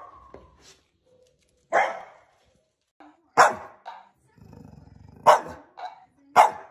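Dog barking in short, sharp barks, about one a second, with a low growl rumbling just before the middle barks.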